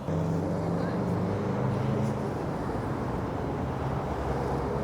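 Steady outdoor street noise: a low traffic rumble with indistinct voices.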